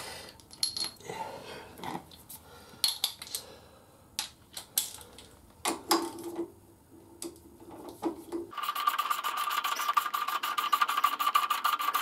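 Scattered light clicks and knocks of hand tools and parts as a motorcycle's parts are being refitted. About eight and a half seconds in, a louder rapid ringing rattle cuts in suddenly: fast, evenly spaced strokes over one steady tone, an added alert sound effect.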